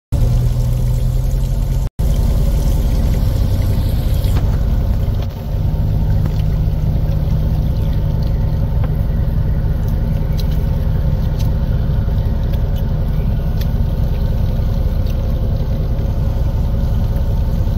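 Fishing boat's engine running steadily with a low rumble, with water running into a plastic tub of live catch.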